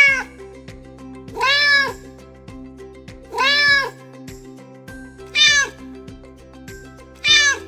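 Domestic cat meowing five times, about every two seconds, each meow rising then falling in pitch, over light background music.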